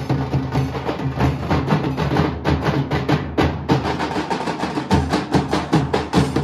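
Nashik dhol ensemble: several large barrel drums beaten with sticks in a fast, driving rhythm of rapid, evenly repeating strikes over deep booming drum tones.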